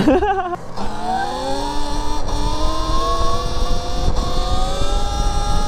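Electric dirt bike motor whining, the pitch rising slowly and steadily as the bike gathers speed, over wind and tyre rumble.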